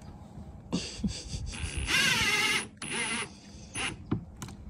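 Cordless drill-driver running in short bursts, driving screws through the hinges into a wooden door. There are four bursts; the longest and loudest comes about two seconds in, and its pitch wavers.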